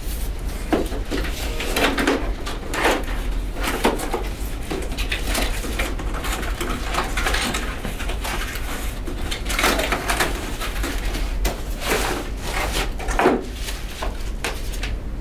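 Cardboard shipping box being opened and handled: irregular scrapes, knocks and rustles of the lid, flaps and packaging as the contents are lifted out.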